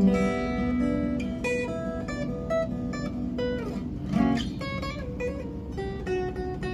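Blueridge BR-183CE steel-string acoustic guitar played solo: a fingerpicked melody of single notes and chords, with a couple of sliding notes about halfway through.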